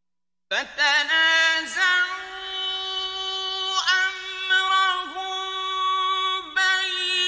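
Solo male voice chanting Quran in the slow, melodic mujawwad style, holding long ornamented notes with gliding turns between them. It begins about half a second in, after silence.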